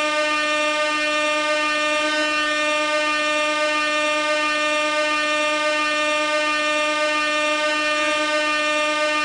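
Gas-powered air horn sounding one continuous, unbroken note with many buzzy overtones, held at a constant pitch and loudness.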